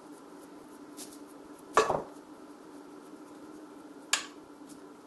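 Two sharp knocks from a glass baking dish as crumb crust is pressed into it by hand: a louder one with a short rattle a little under two seconds in, and a shorter one about four seconds in, with faint light ticks between.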